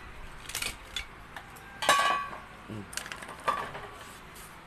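A few sharp metallic clinks and knocks from handling the blender's motor base and hand tools, the loudest about two seconds in with a short ring, a second one about a second and a half later.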